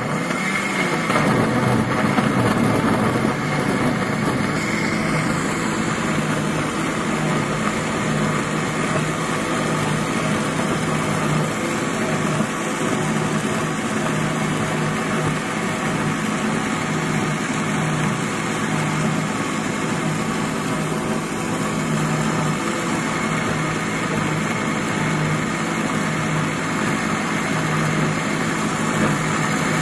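Electric mixer grinder running at a steady speed, its blades whirring through papaya pulp and liquid in the plastic jar as the juice is ground.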